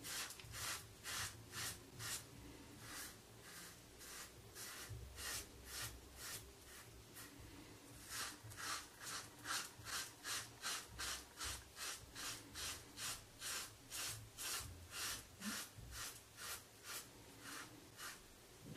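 Rockwell 6C safety razor scraping three days of stubble off a lathered scalp in short, quick strokes, about two a second at first and a little faster in the second half.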